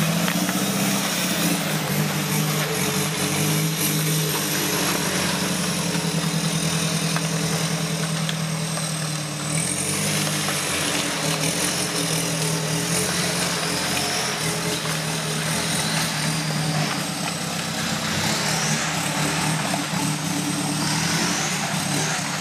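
Four-wheel-drive vehicle's engine running steadily at low revs as it crawls slowly along an off-road trail, its note shifting a little in pitch.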